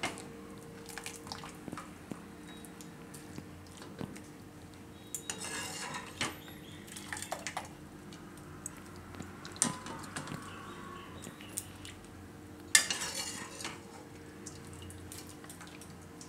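A metal spoon clinking and scraping against a steel pan and bowl as wet blanched spinach is scooped out of hot water and dropped into a bowl of ice water, with splashes and drips. The loudest knock comes just under 13 seconds in, over a faint steady hum.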